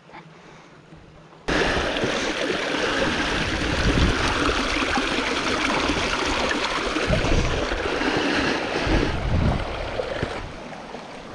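Shallow mountain stream rushing and splashing over boulders right by the microphone, starting abruptly about a second and a half in after a quiet start and easing off near the end.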